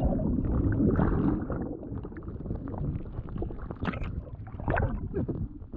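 Sea water churning and bubbling heard from under the surface: a dull, muffled rumble of gurgling water with many small bubble pops.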